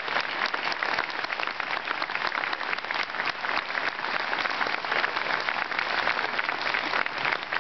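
Audience applauding steadily: a dense patter of many hands clapping, with no letup.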